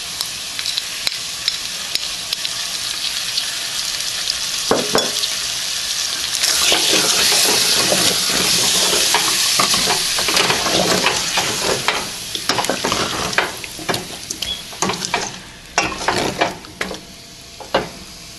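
Potatoes and spice masala frying in hot oil in a steel pot, stirred with a wooden spoon. A steady sizzle grows louder about six seconds in, then dies back. Near the end the spoon scrapes and knocks against the pot.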